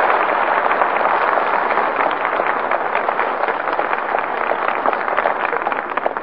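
Studio audience applauding at the close of an act, thinning and dying away near the end, on an old radio broadcast recording with a narrow, muffled frequency range.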